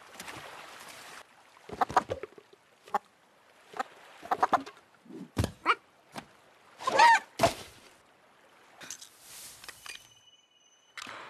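Animated rooster clucking and squawking in short bursts, with one louder warbling squawk about seven seconds in. Surf washes briefly at the start.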